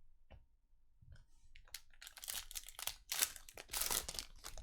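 Trading-card pack wrapper crinkling and tearing as a pack is opened by hand, with a few light clicks first and the crackling getting louder about two seconds in.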